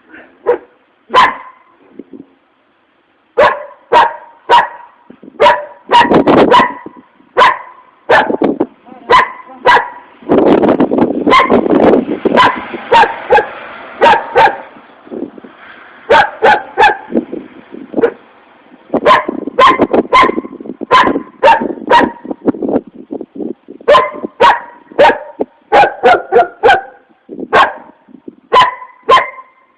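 Dog barking over and over in short, sharp barks, with a brief pause a couple of seconds in. Around the middle the barks come thick and overlapping.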